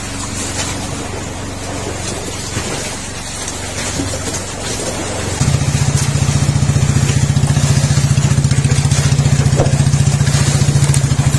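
Boat engine running steadily with a low hum; about five seconds in, a louder, higher engine note with a fast, even chugging pulse suddenly takes over and holds steady.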